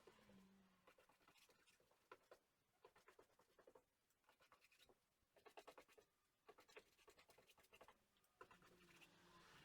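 Faint brush strokes scratching and dabbing in short bursts, working epoxy resin into fibreglass cloth on the inside of a wooden hull.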